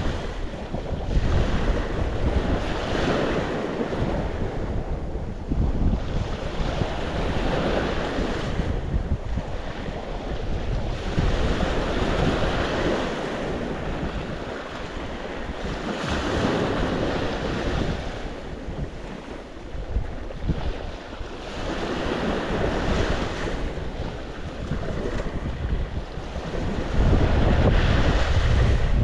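Sea waves breaking and washing in, in repeated surges a few seconds apart. Wind rumbles on the microphone, heaviest near the end.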